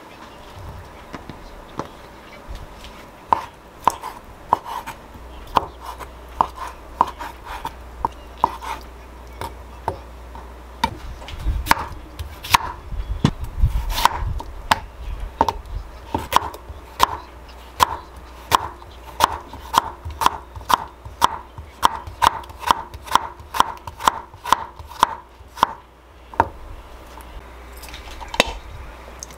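Kitchen knife chopping cucumber on a wooden cutting board: a long run of crisp strikes, spaced out at first, then quickening to about two or three a second before stopping near the end.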